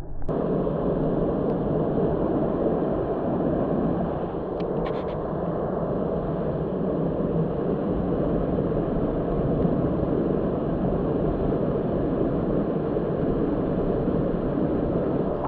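Steady, muffled rushing noise of outdoor ambience, with a couple of faint clicks about five seconds in.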